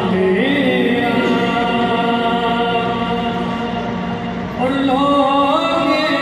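A man singing an Urdu naat in long, drawn-out notes that slide between pitches, amplified through a microphone and loudspeaker. A new phrase begins about four and a half seconds in.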